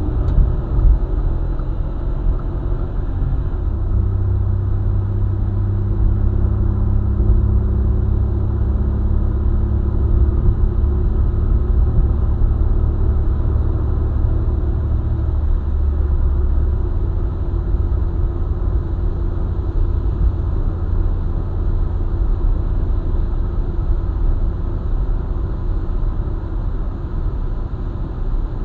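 Car driving on a highway: steady engine and road rumble. The engine's hum shifts up in pitch a few seconds in and sinks back into the road noise about halfway through.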